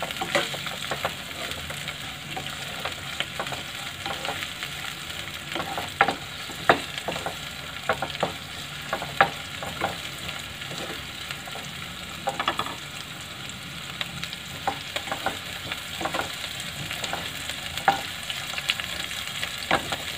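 Chopped onion and capsicum sizzling as they are lightly sautéed in hot oil in a non-stick kadhai, stirred with a spatula that scrapes and taps against the pan at irregular intervals over a steady hiss.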